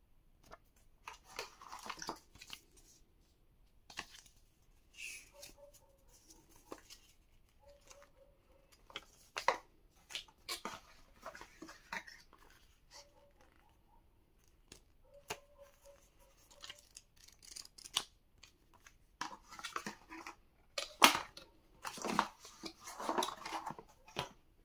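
Cardboard phone box and plastic packaging being opened and handled: irregular rustling and scraping with many sharp clicks and taps, and a few brief squeaks.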